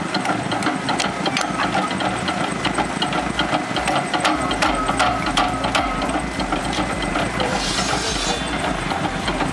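Engine of a firewood-processing machine running steadily, with frequent knocks and clatter, and a short hiss a little over three-quarters of the way through.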